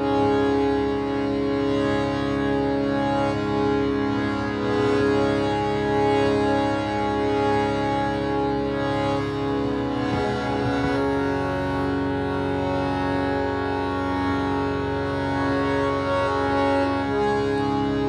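Harmonium playing held chords in an instrumental passage, the notes shifting to a new chord a little after ten seconds in.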